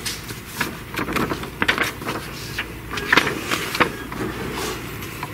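Paper rustling and crackling close to the microphone as a printed sheet is handled, heard as an irregular string of crisp clicks and crinkles.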